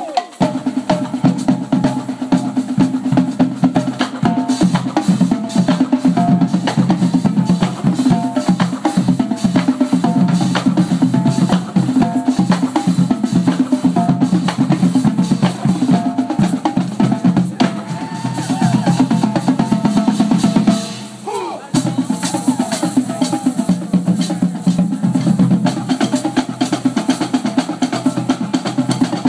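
Marching drumline playing a loud, fast cadence on snare and bass drums, with a brief break about 21 seconds in before the drumming resumes.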